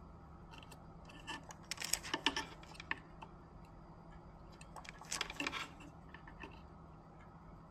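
Small tools and parts handled on a workbench: two short runs of light clicks and metallic taps, over a low steady hum.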